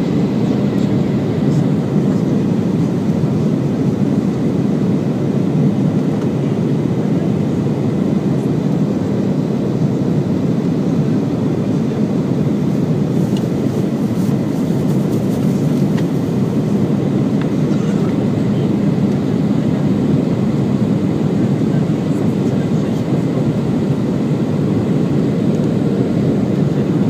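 Steady cabin noise inside a Boeing 737-800 in flight: the drone of its CFM56-7B turbofan engines and the rush of air over the fuselage, heard through the cabin, holding an even level throughout.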